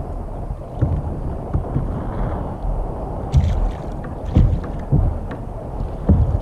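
Wind buffeting the microphone over choppy water lapping against a kayak, with about four dull low thumps in the second half.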